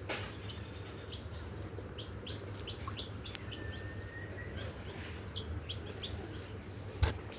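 Birds chirping: scattered short high chirps and ticks over a low steady hum, with one thin held whistle a few seconds in. A single sharp thump comes near the end.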